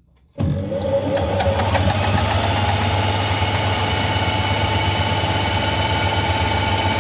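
Taiwanese metal lathe starting up about half a second in, then running steadily with a low hum and a whine, spinning a three-jaw chuck holding a steel bar with no cutting yet. A few clicks come as it spins up.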